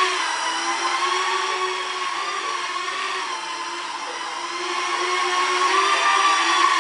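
Small quadcopter drones' electric motors and propellers buzzing in flight, a steady high whine whose pitch wavers slightly as they hover. It softens a little near the middle and then comes back up.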